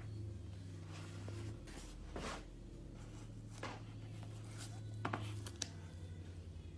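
Brief rustles and scrapes of a leather clutch and its packaging being handled, with two sharp clicks about five seconds in, over a low steady hum.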